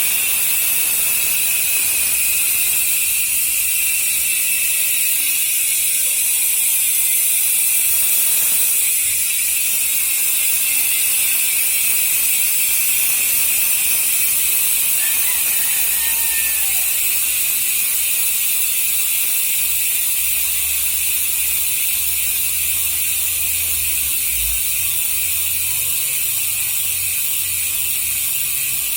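Speedone Soldier six-pawl bicycle hub freewheeling: its pawls make a fast, continuous ratcheting buzz. The buzz falls slowly in pitch as the wheel coasts.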